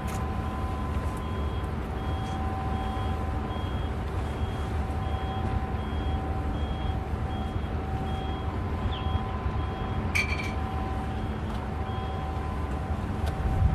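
A vehicle's reversing alarm beeps steadily a little more than once a second over a low engine rumble and hum, then stops near the end. There is a brief sharp sound about ten seconds in.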